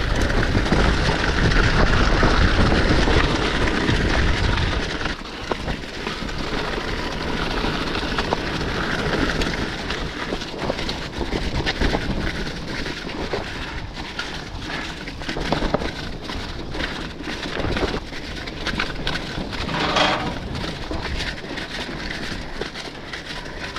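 Mountain bike descending a wet dirt trail, recorded on the rider's camera: a steady rush of wind on the microphone and tyre noise, heaviest in the first few seconds. Later come many quick rattling knocks from the bike as it runs over rocks.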